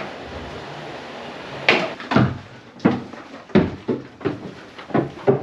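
Footsteps on old wooden floorboards and stairs: a series of hollow knocks about one and a half a second, starting about a second and a half in.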